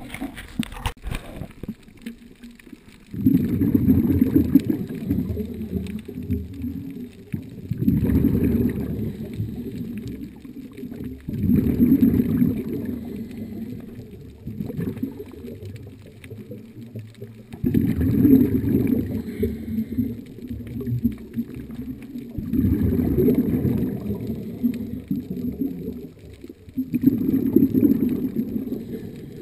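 A scuba diver's exhaled bubbles gurgling out of the regulator close to the camera, in six bursts about every four to five seconds with quieter gaps for inhaling. A few sharp scraping clicks in the first second, from a dive knife working at an encrusted box on the wreck.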